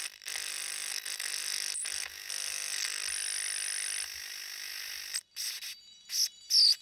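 Electronic sound design from the soundtrack: a steady hiss with thin high tones, which breaks about five seconds in into a run of sharp clicks and a brief, loud swooping tone near the end.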